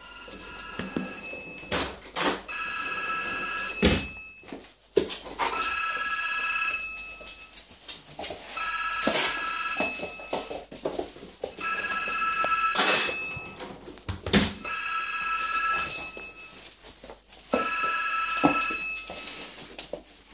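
A phone ringing over and over, each ring about a second long and about three seconds apart. Irregular knocks and clatter from a German Shorthaired Pointer puppy scrambling and pouncing with a toy on a wooden floor come in between the rings.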